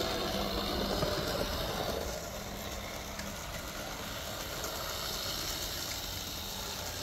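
Small electric motor and gearing of a Märklin Z-scale Class 194 model locomotive running along the track, a steady whir that drops in level about two seconds in.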